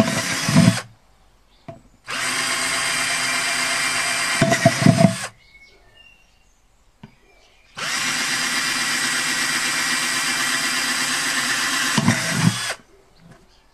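Cordless drill running in three bursts, a short one and then two of several seconds each, as it bores drainage holes through the base of a plastic plant pot; the two longer runs end in a few louder knocks.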